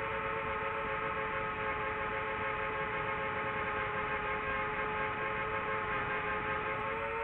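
DJI quadcopter's electric motors and propellers whining steadily in flight, several close tones over a rush of prop wash, shifting slightly in pitch and rising near the end as the throttle changes.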